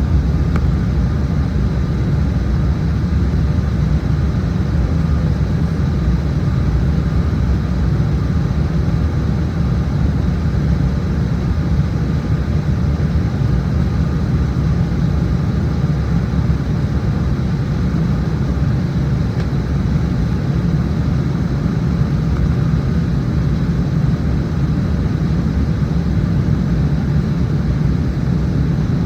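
Airplane cabin noise in flight: a steady, loud rumble of engines and airflow, heaviest in the low end, with a faint high whine held constant throughout.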